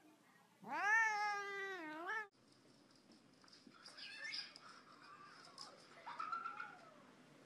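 A domestic cat gives one long, drawn-out meow that rises, dips and rises again, then cuts off suddenly.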